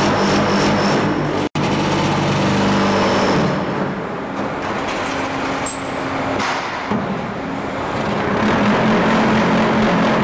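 Concrete block making machine running as it moulds blocks: loud, steady machine noise with a low hum that eases about three and a half seconds in. There is a momentary gap in the sound about a second and a half in.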